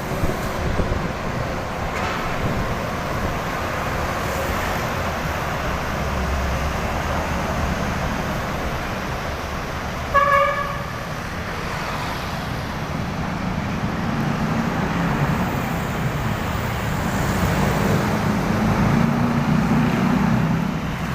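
Road traffic noise with one short, pitched horn toot about ten seconds in, the loudest moment. A low engine note grows louder near the end.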